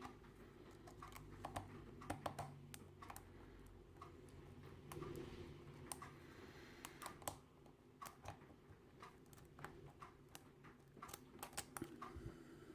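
Faint, irregular clicks and scrapes of a lock pick working the pins of a five-pin brass padlock's narrow keyway under a tension wrench.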